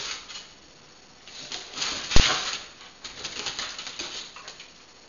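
Deutscher Jagdterrier at play: bursts of rapid scrabbling and clicking, with one sharp knock about two seconds in.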